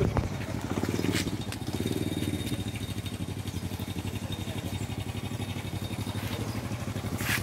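Vehicle engine idling steadily, a low even rumble, with a short click about a second in and another near the end.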